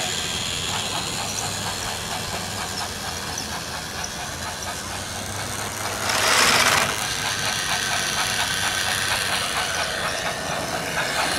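Battery-powered Plarail toy train running on plastic track: its small motor hums while the wheels tick in a quick, even rhythm over the track. A brief loud rush of noise about six seconds in.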